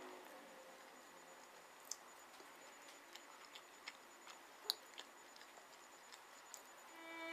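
Near silence with a few faint, scattered clicks of a metal fork touching a ceramic plate as a piece of cake is cut and lifted; the loudest click comes about two-thirds of the way through.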